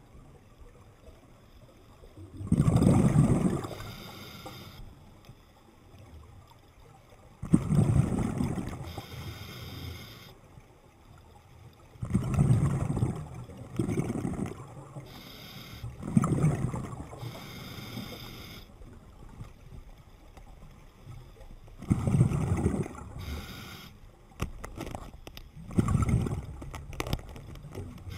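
Scuba diver breathing underwater through a regulator: each breath is a bubbling exhale rumble followed by a hissing inhale, about six breaths at four- to six-second intervals, with a few sharp clicks near the end.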